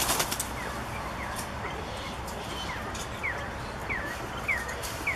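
A bird calling in a run of short chirps that drop in pitch, about one every half second. A few sharp clicks come right at the start, over a steady background hum.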